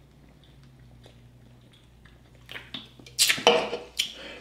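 A person chewing food: quiet at first, then a run of loud crunching, crackling sounds in the last second and a half.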